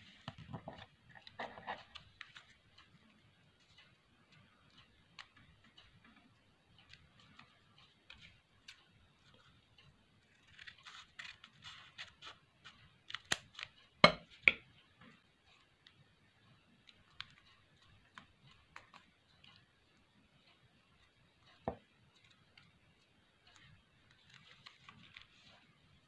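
Origami paper rustling and crinkling as it is folded and creased by hand on a tabletop. A few sharp clicks come about halfway through, the loudest sounds here, with another single click later.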